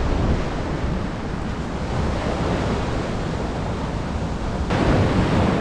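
Ocean surf washing onto a sandy beach, with wind buffeting the microphone as a heavy low rumble. The sound changes abruptly near the end.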